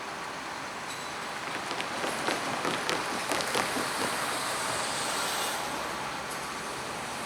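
A vehicle passing, a rushing noise that swells and fades, with a run of sharp clicks as it goes by about two to four seconds in.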